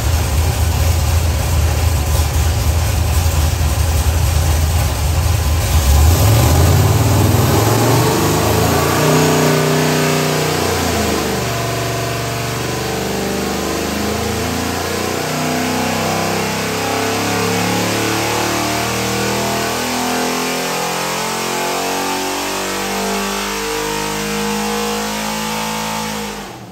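Modified 7.3-litre Ford Godzilla V8 race engine on an engine dyno, running low for the first few seconds, then opening up about six seconds in and climbing in pitch through a pull toward 6,500 rpm. The sound falls away abruptly at the very end as the pull finishes.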